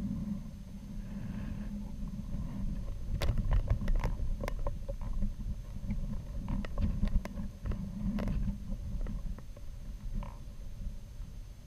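Low rumbling and buffeting on the microphone of a balloon-borne camera payload in flight, with scattered sharp clicks and ticks from the rattling craft between about three and nine seconds in.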